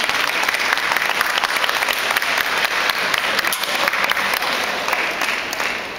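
Audience applauding: a dense patter of many hands clapping that dies down near the end.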